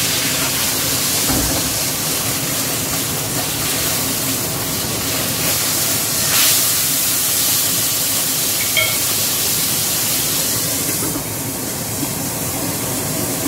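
Fish frying in a little oil in a wok-style pan, a steady sizzle. It flares up about six and a half seconds in as the fish is worked with the spatula, and eases near the end once the lid is on the pan.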